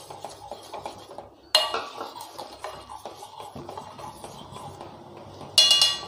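Steel spoon striking and stirring in a stainless steel pot: one ringing clink about a second and a half in, then a louder ringing strike near the end.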